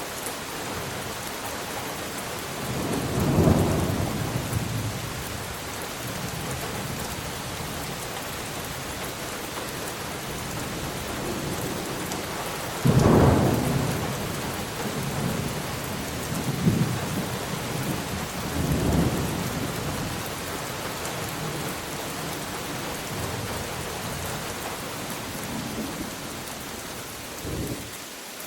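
Steady rain with thunder: a rumble a few seconds in, a sudden sharper clap about halfway that rolls on for a few seconds, and a last short rumble near the end.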